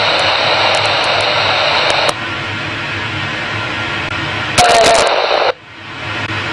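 Loud radio-like static and hiss that shifts abruptly: it thins out about two seconds in, a brief louder burst with a faint tone comes near the end, then it cuts down sharply and carries on as a duller steady hiss.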